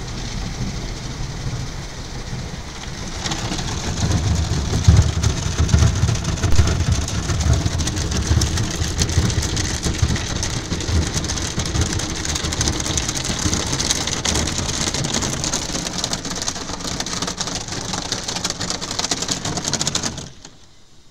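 Automatic car wash water jets spraying the windshield and body of the cab, heard from inside the vehicle as a steady rushing, pattering noise. It grows louder about three seconds in, with a heavy low rumble for a while, then cuts off suddenly near the end as the spray stops.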